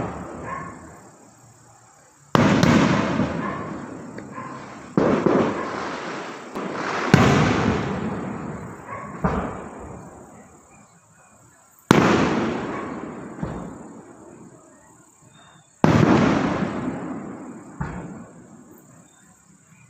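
Aerial firework shells bursting, a sharp bang every two to four seconds, each trailing off in a long echo over a couple of seconds. Five big bangs and a few smaller pops between them.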